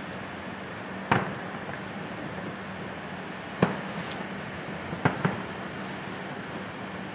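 Distant aerial firework shells bursting: four sharp bangs with echoing tails, one about a second in, one midway, and two in quick succession about five seconds in, over steady background noise.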